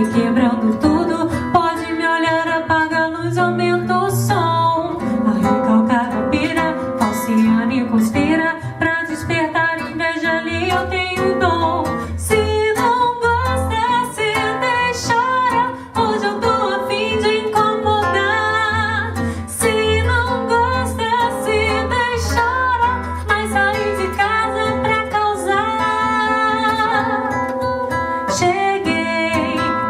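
Acoustic guitar playing a bossa-style accompaniment under singing.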